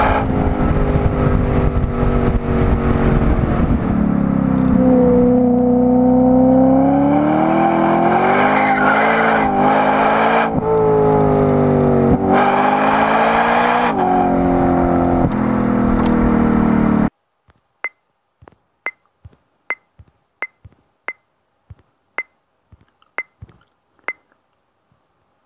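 BMW E92 M3's V8 through a Toyosport aftermarket exhaust, heard at the quad tailpipes, running under load with its pitch sinking, climbing and wavering as the throttle changes. It cuts off abruptly about 17 seconds in, followed by a string of short, sharp beeps from a mobile game.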